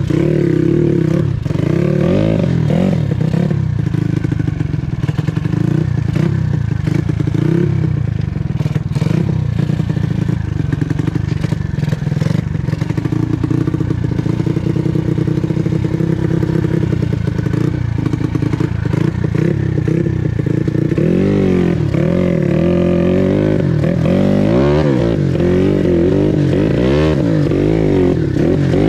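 Yamaha Jupiter Z motorcycle engine running hard on a trail, its pitch wavering. From about two-thirds of the way through, it is revved up and down in quick repeated sweeps.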